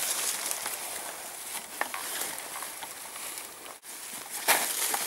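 Rustling and light clicking from handling a wire cage trap and a hessian sack being fitted over the trap's back door, with a louder burst of rustling near the end.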